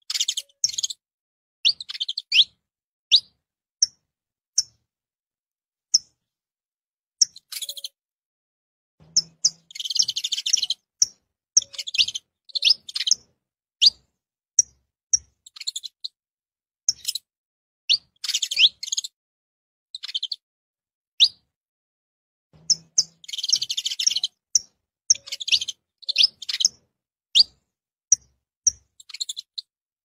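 Saffron finch (canário-da-terra) calling and singing: short, sharp, high chip notes about a second apart, with denser bursts of song about ten seconds in and again near twenty-three seconds.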